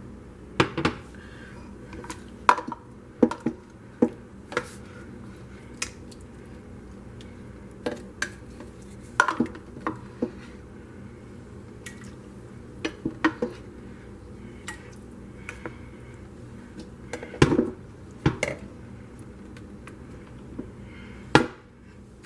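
Kitchen utensils clinking and knocking against dishes and pots, in irregular single strikes with a few louder knocks near the end, over a steady low background hum.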